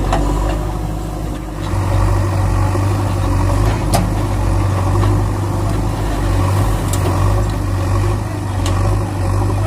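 A vehicle engine running steadily with a low hum, a deeper, stronger note coming in about two seconds in, and a few sharp clicks over it.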